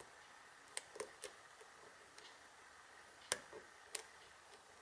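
Faint, sharp clicks of a hook pick working the pins of a Buffo pin-tumbler lock cylinder during single-pin picking: a handful of separate clicks, the loudest about three seconds in.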